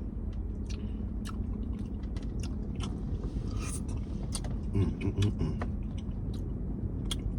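A person chewing a mouthful of boiled yam, with scattered wet mouth clicks, over a steady low background rumble. A short closed-mouth hum comes about five seconds in.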